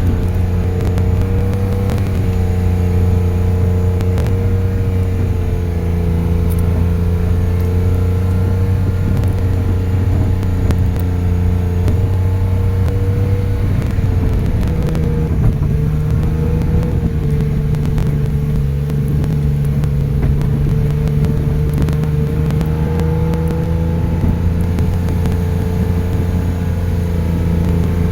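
Steady drone of a running vehicle engine, its pitch drifting slowly up and down.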